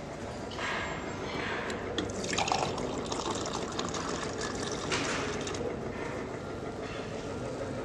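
Juice running from the tap of a refrigerated drink dispenser into a glass, a steady pouring stream that stops abruptly after about five seconds.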